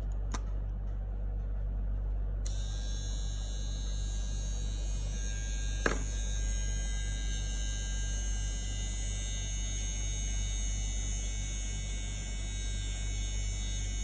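Small battery-powered eyebrow and facial hair trimmer switched on a couple of seconds in, its motor running with a steady high whine over a steady low hum. One sharp click about six seconds in.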